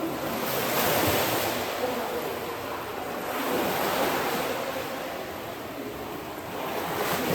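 Swimming-pool water splashing and churning, rising and falling in swells about every three seconds.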